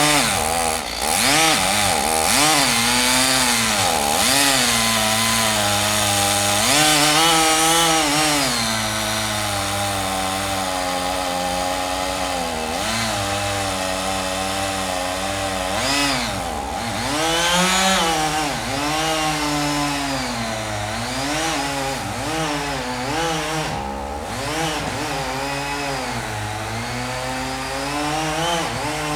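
Petrol chainsaw running, its two-stroke engine revving up and dropping back again and again as it cuts.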